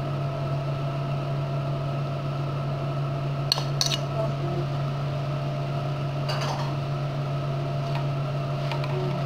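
A metal utensil clinks and scrapes against a stainless steel frying pan as spaghetti is tossed in an egg mixture, with sharp clinks a little after three seconds in, past six seconds and near the end. A steady low hum runs underneath.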